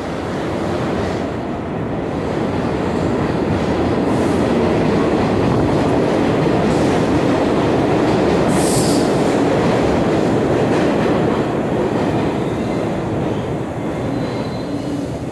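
Vintage subway train running into the station along the platform: a loud, steady rumble of wheels on rails that swells at the start and eases slightly near the end. There is a short high-pitched hiss or squeal about nine seconds in.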